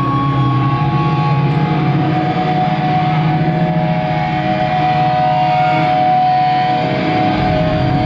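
A live metal band's amplified, distorted electric guitars holding long sustained notes, ringing with feedback over a heavy low drone. The sound is loud and steady throughout.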